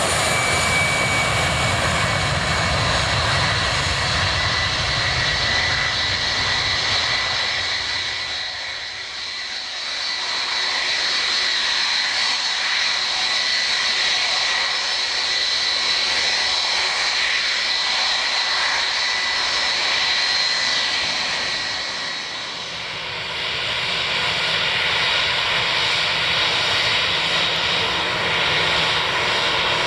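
Twin-engine jet airliner departing at take-off power: loud, steady engine noise with a high whining tone, dipping briefly in level twice, about a third of the way in and again about three quarters in.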